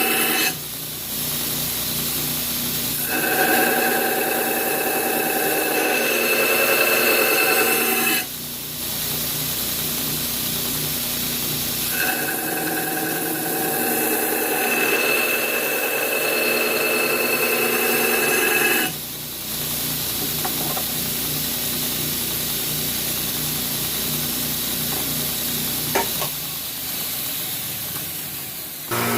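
Power grinder running steadily, with a steel knife blade pressed against it in two long passes that add a louder, high-pitched grinding whine; a single click near the end.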